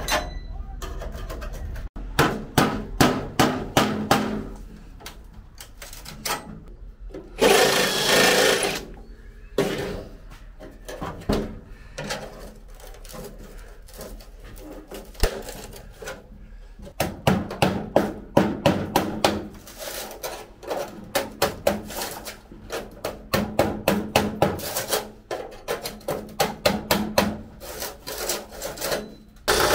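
A hand tool scraping in quick back-and-forth strokes, several a second, in runs with pauses between them. A longer, denser rasping burst comes about 7 to 9 seconds in.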